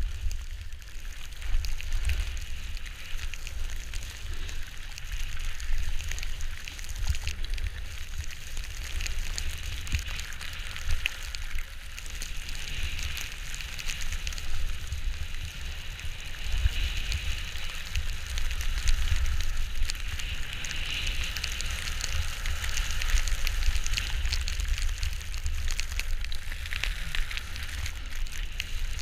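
Skis hissing and scraping over snow in a steady crackly wash, with wind buffeting the microphone as a low rumble.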